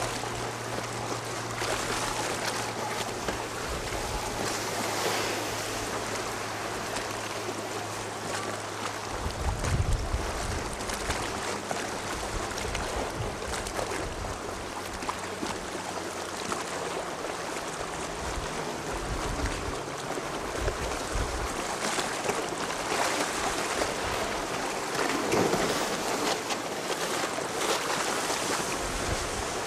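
Wind blowing on the microphone over the steady wash of choppy sea and waves, with low buffeting gusts about a third of the way in and again around two-thirds.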